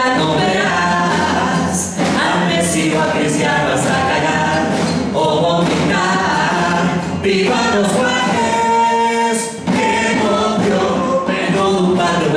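Carnival charanga chorus singing together, loud and steady. About eight seconds in they hold one long chord, which breaks off briefly before the singing goes on.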